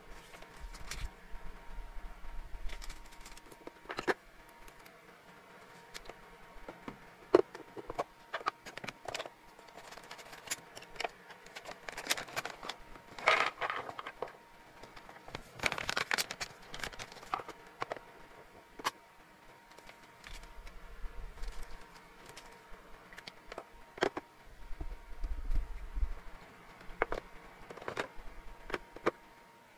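Hard, dry hamster treats rattling and pattering as they are poured from a crinkly bag into a clear plastic storage box. Scattered clicks and knocks come from the plastic boxes and their snap lids being handled, with a denser run of rattling about halfway through.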